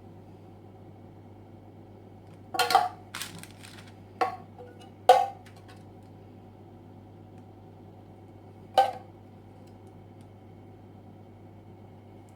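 A metal spoon clinking against cookware about five times, each clink with a short ring, as candy mixture is spooned out into rounds. A steady low hum runs underneath.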